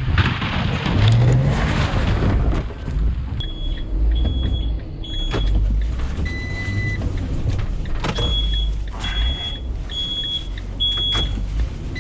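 Delivery van running in snow: engine and tyre noise, louder in the first two seconds. Then a run of short, high electronic warning beeps from the van, about one every 0.7 s, in two groups with a pause between them.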